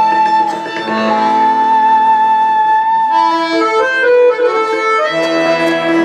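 Instrumental background music: a slow melody of held notes.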